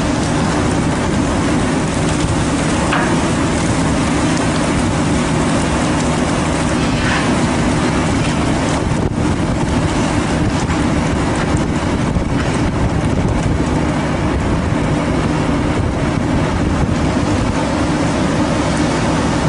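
Fishing boat's engine running steadily as a low, constant drone under a continuous rushing noise.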